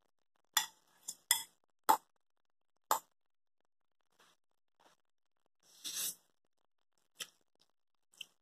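Metal fork clinking against a glass bowl as ramen noodles are lifted out of it: several sharp clinks in the first three seconds and a few more near the end, with one longer, noisier sound about six seconds in.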